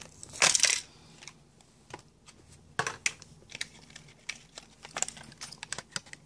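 Hot Wheels plastic blister pack being handled, crinkling, with a loud burst of crackling about half a second in. Scattered sharp clicks follow.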